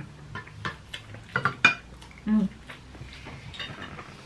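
Metal forks and spoons clinking and scraping against dinner plates during a meal, with a quick run of clinks in the first two seconds and a few lighter ones later. A short voiced sound comes about halfway through.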